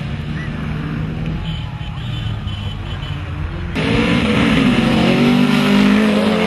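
Car engines on a drag strip: one car accelerating away, then an abrupt cut about four seconds in to a louder engine revving, its pitch rising and falling.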